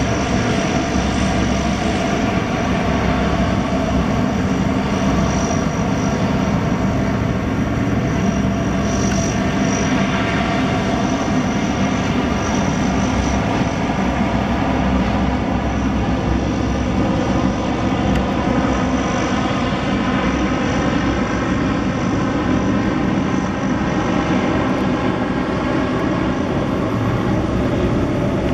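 Lockheed C-130H Hercules's four Allison T56 turboprop engines running steadily, with the propellers turning: an even drone with a thin high whine above it.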